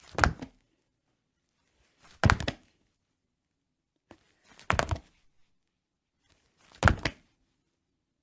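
Body-fall sound effects: four separate heavy thuds of a body hitting the floor, about two seconds apart. Each is a short cluster of a few quick impacts.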